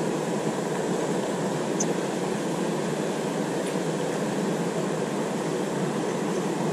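Steady rush of a shallow, rocky river flowing over stones.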